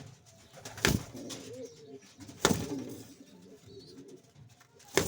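Pouter pigeons cooing in low, wavering tones, broken by three sharp loud knocks: about a second in, near the middle, and at the very end.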